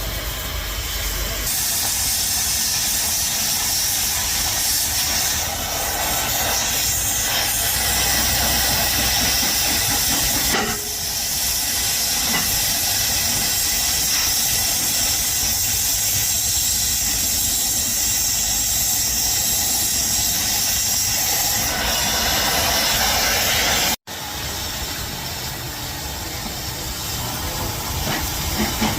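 A steady, loud hiss from a machine or tool used in heavy-equipment repair work, breaking off for an instant about three-quarters of the way in and then carrying on.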